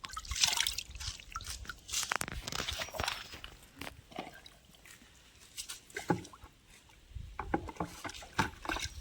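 Water splashing and dripping in irregular small bursts as a toy car and scrub brush are wetted, with a quieter stretch in the middle.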